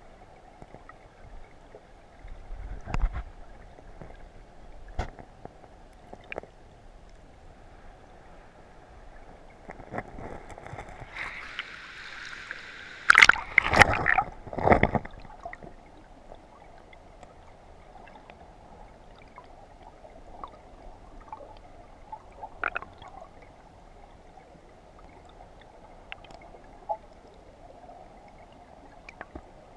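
River water gurgling and sloshing around a camera held underwater, with scattered knocks and a louder stretch of splashing and knocking between about eleven and fifteen seconds in.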